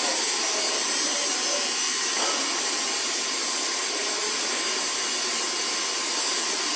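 Steady rushing, hiss-like background noise of a large workshop hall, with one faint knock about two seconds in.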